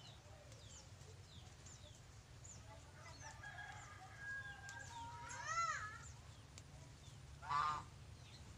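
A rooster crowing, its call rising and falling about five seconds in, followed by a shorter loud call about two seconds later. Faint high chirps repeat in the background.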